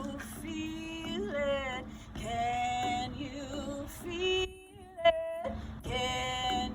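A woman singing a slow song, phrases of long held notes with slight vibrato separated by short breaths. Near the middle the singing briefly cuts out and a sharp click is heard.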